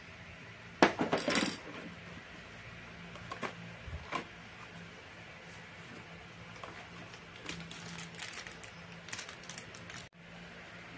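Clinks and rattles of scooter CVT parts being handled by hand, loudest in a quick cluster of sharp clinks about a second in, then scattered single clicks; a plastic parts packet crinkles near the end.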